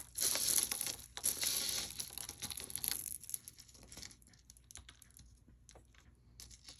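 Packaging crinkling and rustling as a piece of jewelry is unwrapped, loudest for the first three seconds, then fading to a few light clicks and taps.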